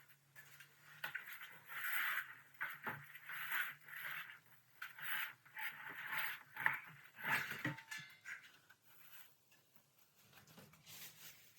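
Cardboard box and packing material being handled during unpacking: irregular rustling and scraping, with a few sharp knocks.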